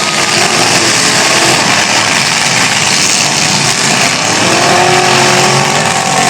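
Demolition derby car engines running loud together, with one engine revving up about four seconds in and holding at the higher pitch.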